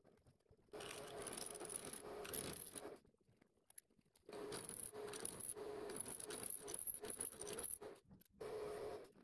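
Milling machine end mill cutting an aluminium block: a steady motor tone under a metallic cutting noise, in three stretches that start and stop abruptly.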